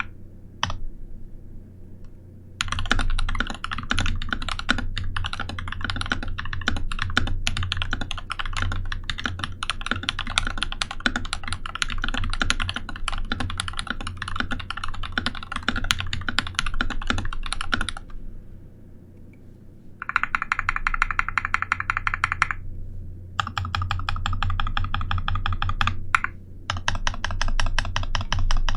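Typing on a mechanical keyboard, an NK65 Entry Edition with Holy Kiwi tactile switches (Holy Panda stems in Kiwi housings, filmed) and HK Gaming Chalk keycaps, giving a deep thock. Fast continuous typing starts a couple of seconds in and runs for about fifteen seconds, stops for about two seconds, then comes back in three bursts with short breaks between them.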